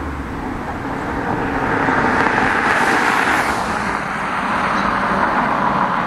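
2007 Pontiac G6 GT with its 3.5 L V6 and a GT-R aftermarket exhaust driving past at speed. The rush of tyre and engine noise swells to its loudest about halfway through, then eases off a little.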